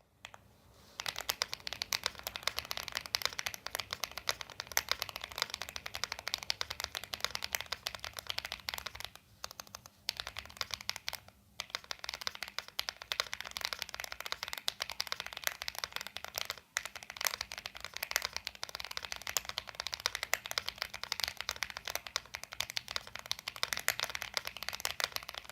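Rapid typing on a mechanical keyboard fitted with Ajazz Banana tactile switches (polycarbonate top housing, nylon bottom housing, POM stem): a dense run of keystroke clacks, with two short pauses partway through.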